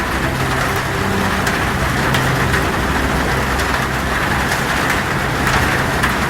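Heavy rain on a tin roof: a dense, steady hiss with many sharp drop hits. Under it run soft, sustained low notes that change pitch every second or two.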